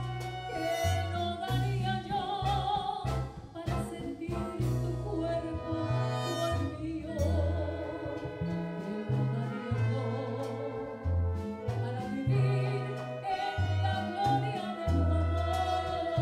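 Live band playing a bolero: a woman sings with a wavering vibrato over held horn chords, long bass notes, piano and Latin hand percussion.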